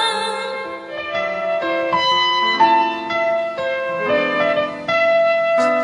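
Instrumental break in a sung pop ballad: a piano-toned keyboard plays a melody line, one note about every half second.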